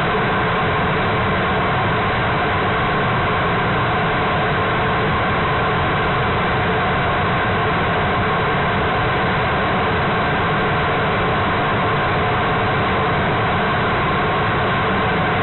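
LE-9 expander-bleed-cycle liquid-hydrogen/liquid-oxygen rocket engine firing on a test stand in steady-state burn, a few seconds to half a minute into a 70-second static fire. It makes a loud, steady rushing noise that does not change.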